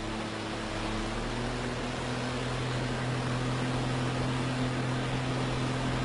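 A vehicle engine running steadily as it drives through deep floodwater, its hum shifting slightly in pitch about a second in. Over it is a constant wash of rushing, churning water.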